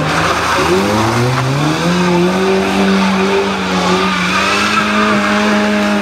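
Citroën Saxo competition car accelerating hard: the engine revs climb over the first two seconds, are held high and steady, and drop off at the very end.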